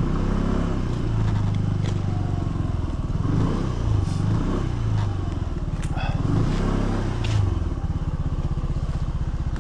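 Motorcycle engine running at low speed, its pitch rising and falling with the throttle as the bike rolls slowly, then settling into a steady idle about eight seconds in.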